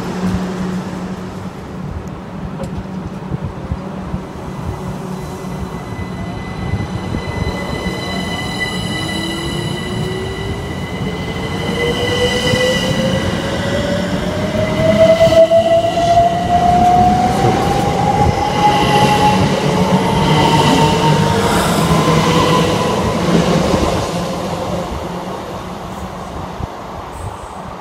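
Electric train accelerating past on the line, its traction motors giving a whine that rises steadily in pitch over about ten seconds above the rumble of wheels on rail. It is loudest in the second half and fades near the end.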